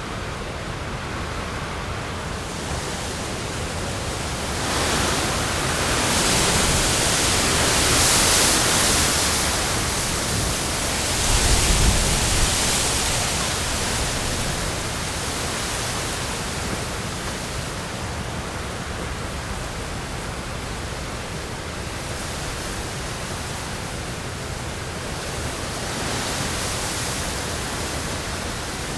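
Autumn wind blowing through trees with leaves rustling: a steady rush that swells into gusts from about five seconds in, strongest around eight and twelve seconds, then settles back to an even rustle.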